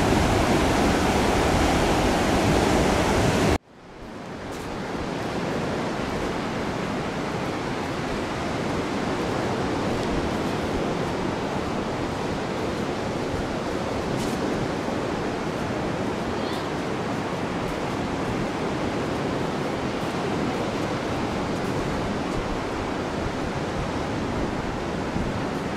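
Ocean surf washing steadily onto the beach. It cuts out abruptly about three and a half seconds in and comes back a little quieter.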